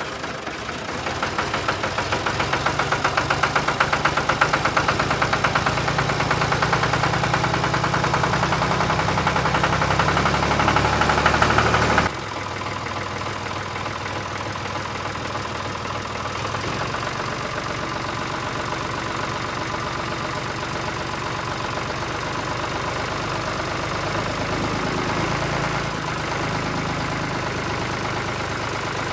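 Tractor engine running steadily with a rhythmic chugging knock. It is louder for about the first twelve seconds, then drops abruptly to a quieter, even run.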